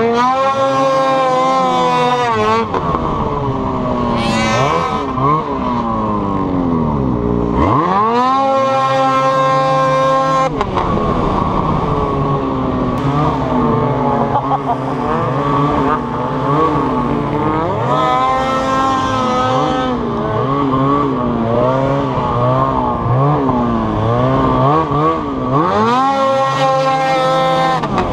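Two-stroke 800-class snowmobile engine under the rider, revving up sharply to high revs four times and holding there for two or three seconds each time, with lower, wavering part-throttle revs in between.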